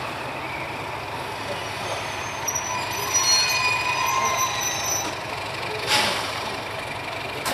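Diesel locomotive moving slowly with its engine running at a low, steady hum, and a thin, high squeal from the wheels about three to five seconds in. A short sharp hiss of air comes about six seconds in.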